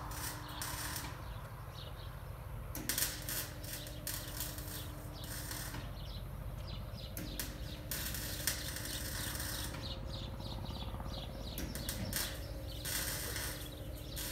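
Bursts of rapid mechanical clicking lasting a second or a few seconds each, several times, over a steady low hum.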